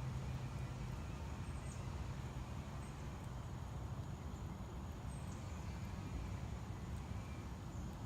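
Outdoor ambience: a steady low rumble with a few faint, high, short bird chirps scattered through it.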